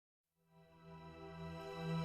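Music fading in out of dead silence about a third of a second in: a sustained, steady low tone with many overtones, swelling in level.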